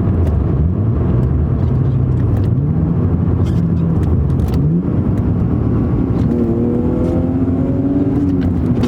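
BMW E36 320i's M52 straight-six accelerating. Its pitch climbs, drops sharply about halfway through as it shifts up, then climbs again and eases off near the end.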